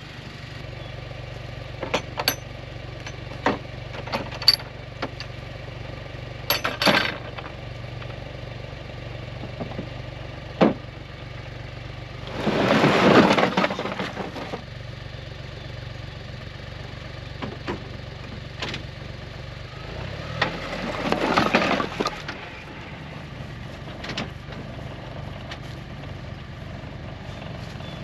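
Tracker Off Road UTV engine idling while split firewood is dumped from its tipping bed: scattered single knocks of pieces landing, then a loud clattering rush of firewood sliding out about twelve seconds in, and a second one about twenty-one seconds in.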